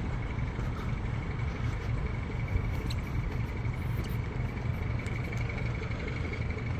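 Night-time city and river ambience: a steady low rumble with a thin, continuous high tone above it and a few faint clicks.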